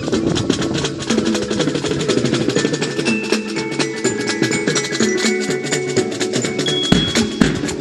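Marching jazz band playing: a steady drum rhythm under a massed melody, with ringing glockenspiel notes on top.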